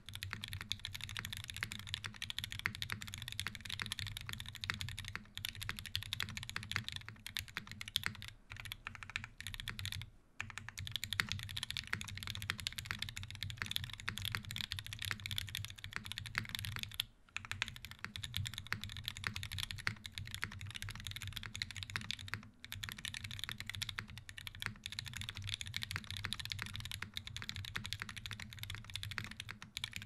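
Fast, continuous typing on a custom mechanical keyboard with lubed UHMWPE-stem JWK H1 linear switches in a brass plate, a gummy O-ring mount and GMK keycaps. The keystrokes come densely, with brief pauses about ten, seventeen and twenty-two seconds in.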